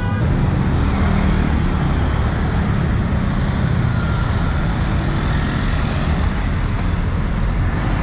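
Busy city road traffic: cars, motorcycles and a bus driving past close by, a steady rumble of engines and tyres.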